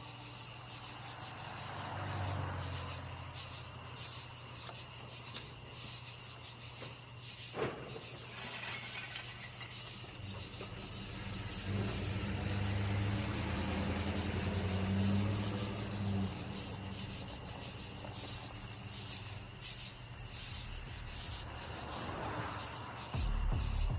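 Crickets chirping steadily in the night, under a low hum that swells up and fades a few times. Two sharp clicks come in the first third.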